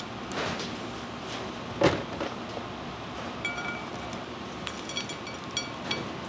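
Light kitchen clatter: scattered clinks of utensils and containers over steady room noise, with a louder knock about two seconds in.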